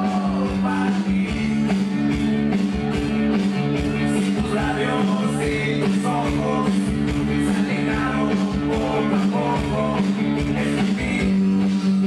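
Cumbia music playing over a sound system: a singing voice over guitar and a steady, continuous beat.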